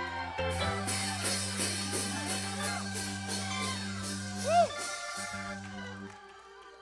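Church praise band playing under a shout of praise: held low chords with drum and cymbal hits about three a second, and a single loud shout about four and a half seconds in. The music fades out near the end.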